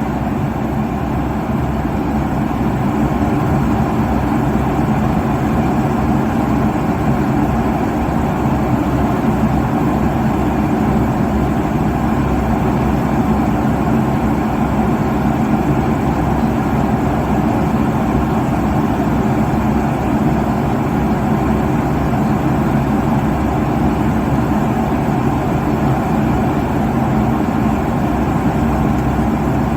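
Airliner cabin noise at cruising altitude: the engines and the rush of air past the fuselage, heard from inside the cabin as a steady, even drone without change.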